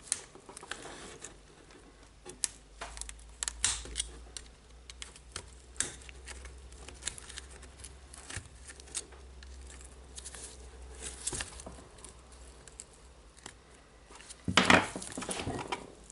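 Thin screwdriver picking and scraping at the spring ring on the tool holder of a Hitachi DH28PCY rotary hammer: scattered light metal clicks and scratches. There is a louder burst of handling noise near the end.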